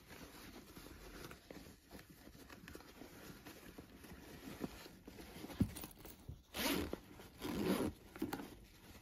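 A zipper and lining fabric being handled: soft irregular rustling, with two louder rasping strokes about seven seconds in.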